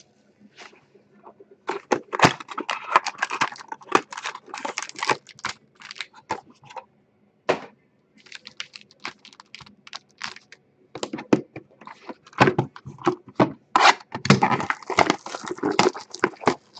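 Sealed trading-card boxes handled by hand: irregular bursts of crinkling plastic wrap and cardboard being tapped, slid and set down, with a short pause about halfway.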